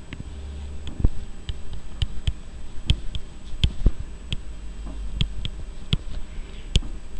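Pen stylus tapping and clicking against a drawing tablet while lines and letters are drawn: a string of sharp, irregular ticks, about two a second, over a low steady hum.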